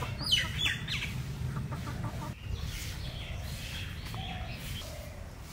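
A red country chicken under a bamboo basket cover squawking, with a few sharp calls falling in pitch about half a second in, then softer clucks.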